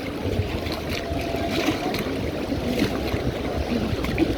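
River water rushing around a rafting boat, with wind buffeting the microphone.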